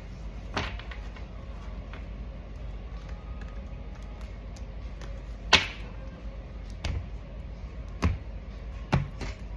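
Tarot cards being handled and laid down on a table: a handful of separate short taps and slaps, the loudest about halfway through, over a low steady room hum.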